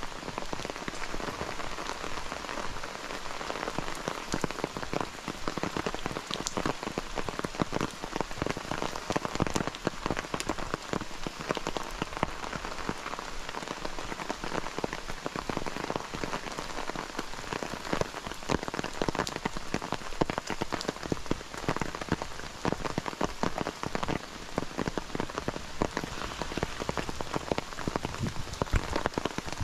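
Steady rain: an even hiss with many close drops striking sharply and irregularly on top.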